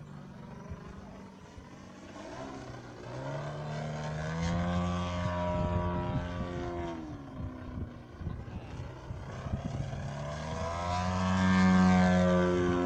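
Large-scale aerobatic radio-controlled biplane's engine and propeller running in flight. The note rises as the plane comes close, falls away near the middle, and rises again to its loudest near the end.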